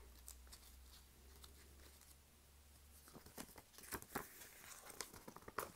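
Faint paper handling as a folded pamphlet is worked open: small crackles and ticks in the second half, with near silence before them.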